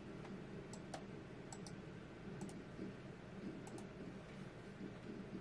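Faint computer mouse clicks, about eight short clicks, several in quick pairs, over low room noise.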